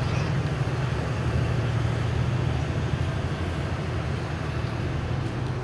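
Steady low rumble of outdoor background noise, with an even hiss above it and no distinct events.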